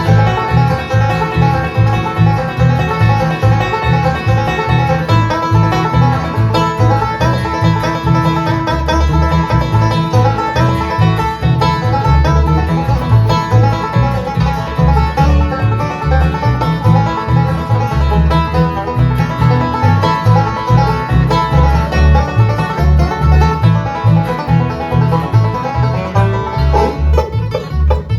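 Live bluegrass band playing an instrumental passage: banjo picking over acoustic guitar with a steady rhythm, and no singing.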